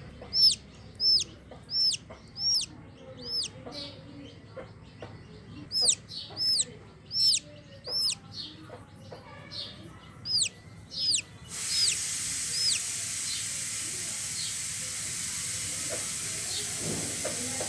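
Chick peeping from inside its egg: runs of short, high peeps, each rising then falling, about one and a half a second, with pauses between the runs. About twelve seconds in, a steady hiss starts and continues under fainter peeps.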